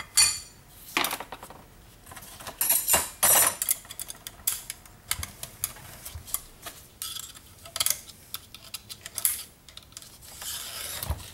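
Steel clutch plates and friction discs of a TH400 automatic transmission's clutch drum clinking and clattering as they are handled and reseated. The sound is irregular metallic clicks and knocks.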